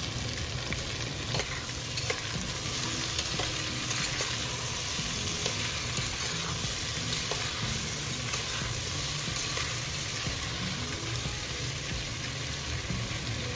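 Chopped potato, carrot, squash and tomato sizzling in oil and ghee in a pot, stirred with a metal spatula that gives occasional light clicks against the pot. The vegetables are being sautéed before rice and dal go in for khichuri.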